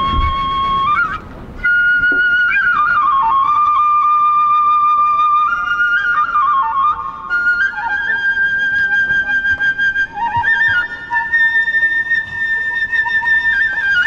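Japanese bamboo transverse flute (kagura flute) playing a slow, high melody of long held notes with quick ornamental trills between them, a brief break about a second in. A second, lower flute line joins about halfway through.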